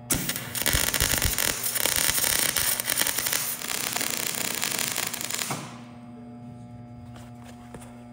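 Wire-feed welder arc crackling steadily for about five and a half seconds as a hinge is welded onto thin sheet-metal door skin at a turned-down heat setting, then cutting off suddenly. A steady low hum continues underneath.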